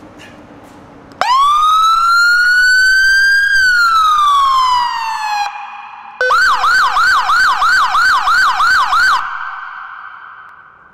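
Police siren on a police-modified 2017 Can-Am Spyder being tested. About a second in, a wail rises and then falls over about four seconds and cuts off. Then a fast yelp cycles about three times a second for about three seconds, stops abruptly, and rings on briefly in the parking garage's echo.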